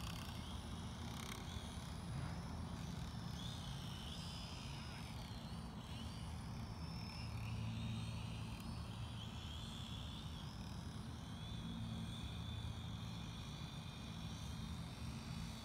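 Petrel FPV drone's propellers whining faintly in flight, the pitch gliding up and down as the throttle changes, over a steady low rumble.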